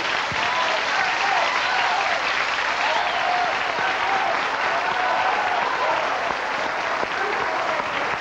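Studio audience applauding steadily after a song, with a few shouts over the clapping.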